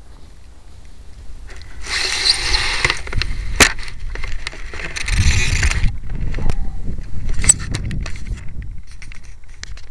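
Handling noise picked up by a camera on a model glider's fuselage as the glider is lifted off the grass and held. Two bursts of rustling and scraping come about two and five seconds in, with scattered knocks and clicks.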